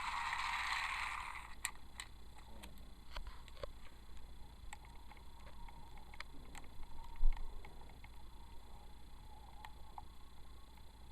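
Battery-powered toy train motor whirring steadily, cut off about a second and a half in; then faint scattered clicks and one sharp thump about seven seconds in.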